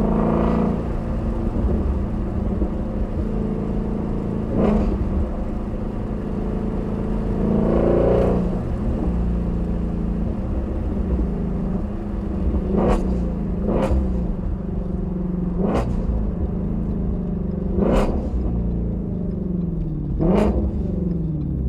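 Shelby GT350R's 5.2-litre flat-plane-crank V8 running under way, its note swelling and easing, with about six sharp exhaust pops and crackles spaced through the run.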